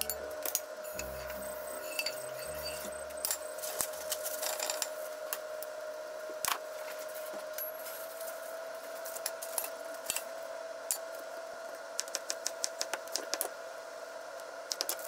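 Kitchen work sounds: metal utensils clinking against a frying pan and dish, then a quick run of knife taps on a wooden cutting board as an avocado is sliced, over a steady hum.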